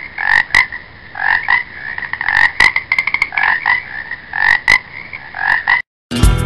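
Frogs croaking, pulsing calls repeated in clusters with a few sharp clicks among them. The croaking cuts off near the end and music begins.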